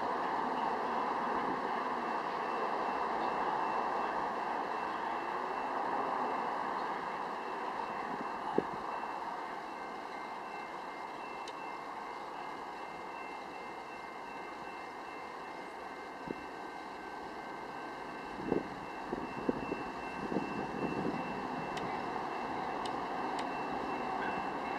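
Steady outdoor rumble of a Metra commuter train approaching in the distance along straight track, with a faint continuous high tone. A few sharp knocks come in the second half.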